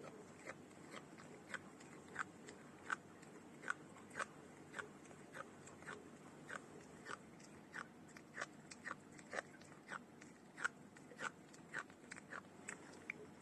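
A cat crunching dry kibble, with a steady run of short, crisp crunches about two a second.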